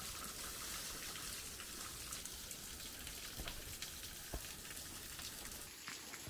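Steady hiss of water dripping and trickling off a wet rock face, with scattered single drops standing out.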